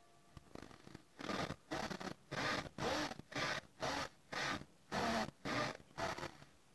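Japanese handsaw cutting into the end of a wooden board, a rhythmic rasping of saw strokes at about two a second that starts about a second in.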